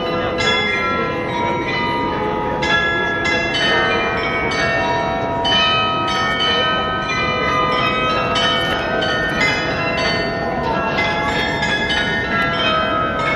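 The Munich Rathaus-Glockenspiel's carillon of bells playing a tune. Many struck bell notes follow one another and ring on, overlapping.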